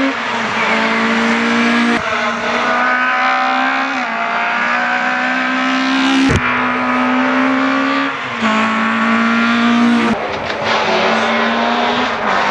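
Rally car engines running hard at high revs, the note holding fairly steady and then changing abruptly about every two seconds, with some tyre noise.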